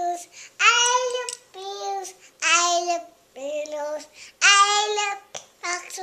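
A young child singing a song about balers in a high voice, in a string of short sung phrases about half a second to a second long with brief breaks between them.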